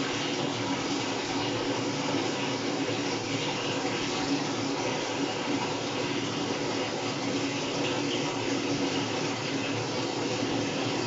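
Sharp ES-KS70K-P washing machine running mid-cycle: a steady rush of water inside the drum with a faint hum.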